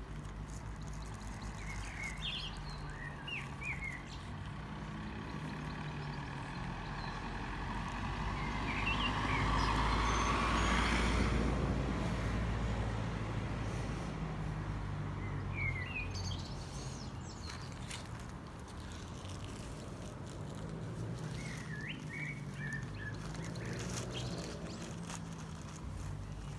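A vehicle passes by, swelling up to its loudest just before the middle and then fading away. Birds chirp in short bursts now and then over a low steady background hum.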